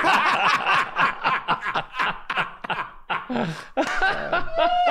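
Several men laughing hard together in rapid bursts, with one long, high, wavering laugh near the end.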